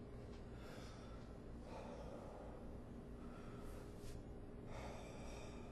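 A person breathing heavily and gasping: four or so short, faint breaths over a steady low hum.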